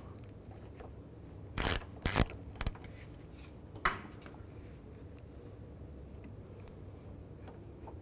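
Ratchet and 10 mm socket clicking in a few short bursts in the first four seconds as a nut is unscrewed, then only faint room tone.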